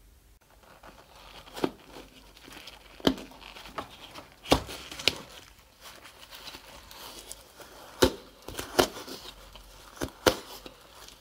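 Black waders handled close to the microphone: the material crinkles and creases, with about eight sharp snaps or clicks spread unevenly through.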